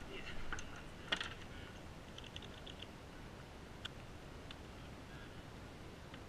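Fishing tackle being handled: a few light clicks and taps, the sharpest about a second in, with a quick run of small ticks about two and a half seconds in.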